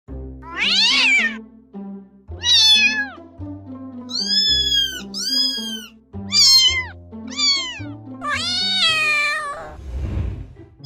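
Kitten meowing repeatedly, about seven high-pitched meows, each bending up and then down in pitch, over background music with steady low notes.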